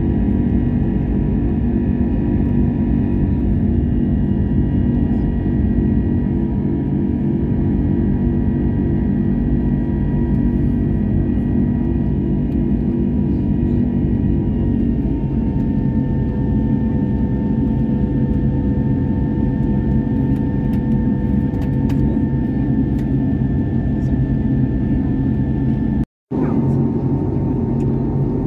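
Airliner cabin noise during the climb after takeoff: a steady engine drone with whining tones over a low roar. The tones shift slightly lower about halfway through. The sound cuts out for an instant near the end.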